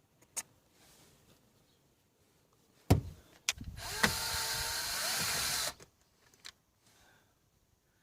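A sharp knock, then a cordless screwdriver runs for about two seconds, undoing a screw from the steering column trim.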